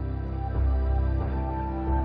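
Background music: a calm instrumental with sustained notes, and a deep bass note coming in about half a second in.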